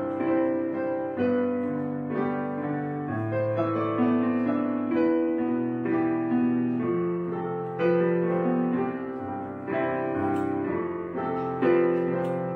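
Slow background piano music, with held notes and chords that change about once a second.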